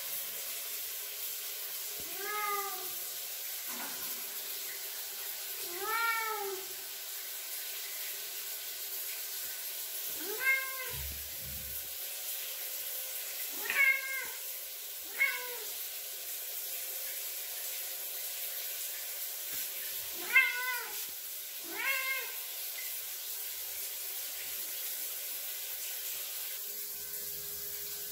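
Ragdoll cat meowing for attention: about seven short, arching meows a few seconds apart, two of them in quick pairs, over the steady hiss of a running shower.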